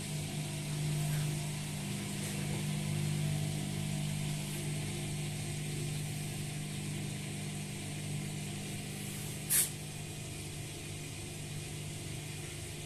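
Samsung washing machine running a wash cycle on freshly replaced drum bearings and seal, its motor and drum giving a steady hum. A short hiss about nine and a half seconds in.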